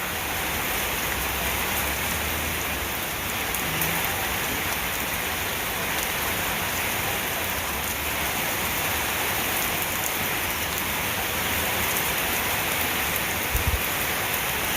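Steady heavy rain pouring down in a thunderstorm downpour, an even hiss of drops on the ground and surfaces. A couple of soft low knocks near the end.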